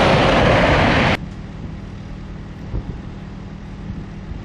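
Scania V8 truck on the road: loud engine and rushing road noise that cuts off suddenly about a second in. A much quieter, steady engine hum follows.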